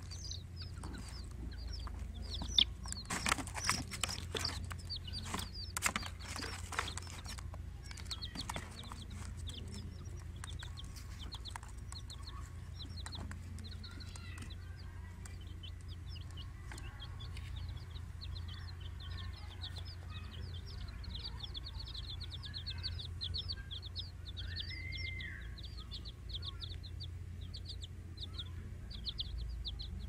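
Baby chicks peeping: a continuous run of short, high chirps, several a second. A cluster of sharp knocks and taps comes in the first several seconds.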